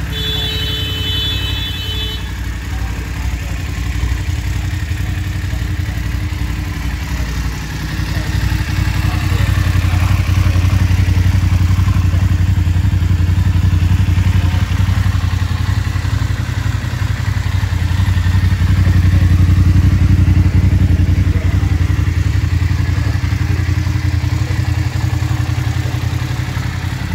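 BMW F850 GS's parallel-twin engine idling steadily, growing louder about eight seconds in.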